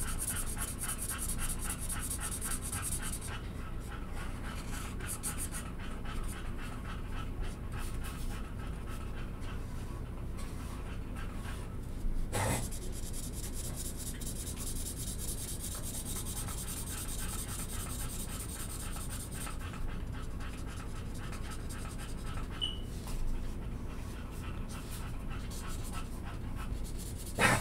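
A dog panting rhythmically, with a felt-tip marker rubbing across paper as it colours. One sharp click about twelve seconds in.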